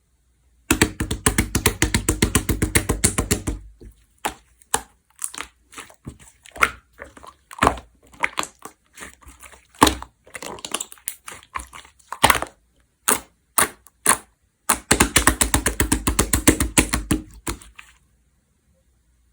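Large slime being squeezed and kneaded by hand, making rapid runs of wet clicking pops, twice, with slower single clicks and pops in between.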